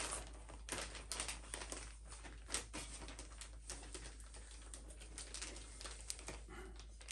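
Faint crinkling and rustling of a clear plastic cymbal sleeve being handled, with scattered light clicks and ticks.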